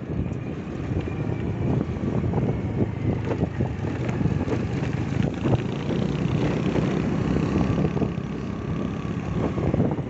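Motor scooter running at steady riding speed, heard from the rider's seat, with wind buffeting the microphone and road rumble.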